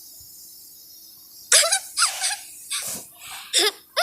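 Sound-effect preview of a small child giggling in short, quick bursts that start about a second and a half in.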